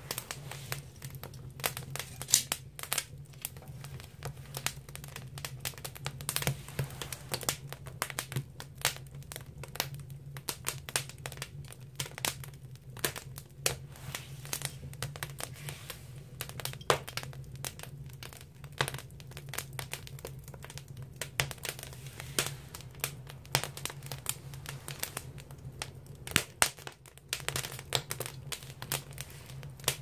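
Firewood burning in an agungi, a traditional Korean wood-fired firebox: irregular sharp crackles and pops, several a second, over a steady low hum.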